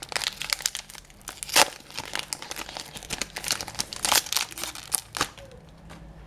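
Trading card pack wrapper crinkling and crackling as it is handled and torn open, in sharp irregular crackles with the loudest about a second and a half in and again about four seconds in, dying away about a second before the end.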